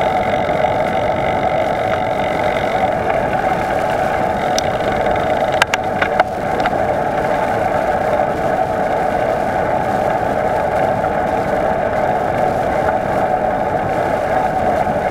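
Steady rushing noise of a bicycle in motion: tyres rolling on the path and wind across the camera microphone. A short cluster of sharp clicks or rattles comes about six seconds in.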